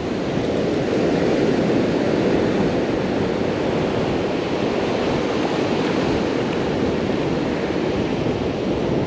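Ocean surf breaking and washing up over a sandy beach in a steady rush.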